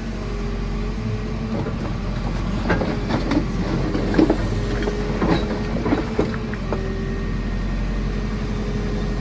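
JCB 4CX backhoe loader's diesel engine running steadily under load, with a wavering hydraulic whine as the ditching bucket works. A cluster of knocks and scrapes from about three to six seconds in, as the bucket digs into rubble and brambles.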